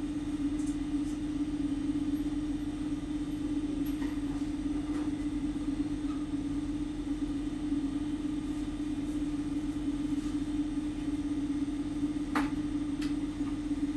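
Steady low hum, with a sharp click about twelve seconds in and a fainter one just after.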